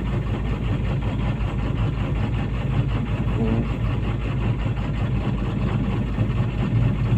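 Komatsu PC200-8 excavator's six-cylinder common-rail diesel idling steadily during a cylinder cut-out test, with injector number 2 switched off; the engine keeps running and the cylinder is judged to be working.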